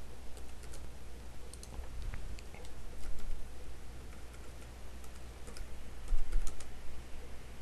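Computer keyboard typing, irregular keystrokes in short runs, over a steady low hum.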